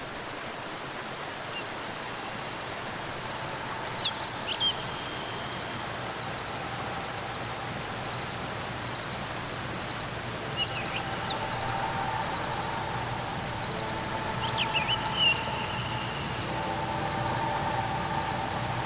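Steady rush of falling water from a waterfall, with a few short bird calls over it and a quiet three-note chirp repeating about once a second. A low droning tone builds in the last several seconds.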